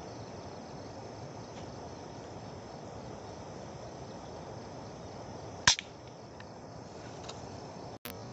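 Steady chirring of crickets and insects, broken about five and a half seconds in by a single sharp crack of an air-rifle shot.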